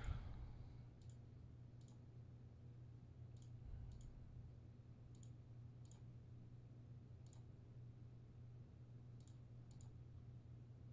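Faint computer mouse clicks, about nine spaced a second or two apart, over a low steady hum.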